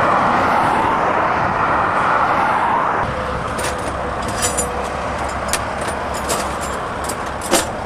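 Steady rush of motorway traffic passing close by. About three seconds in it gives way to a low steady hum, over which come a series of sharp clicks and knocks as gear is handled in the back of a van, the loudest near the end.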